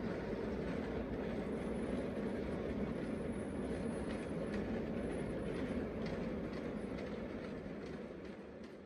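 A 5-inch gauge miniature railway train running on the track: a steady low noise that fades out near the end.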